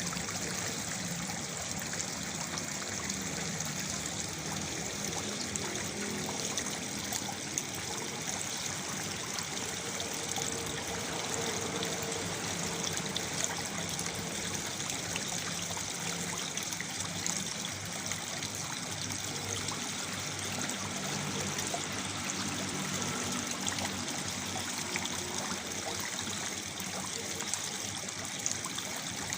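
Small waterfall splashing steadily into a pool: an even, continuous rush of falling and trickling water.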